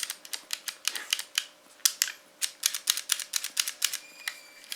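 Trigger of an Umarex Beretta APX CO2 air pistol pulled again and again, giving only dry mechanical clicks at about four a second, some in pairs: the trigger has failed and the gun fires neither BBs nor CO2.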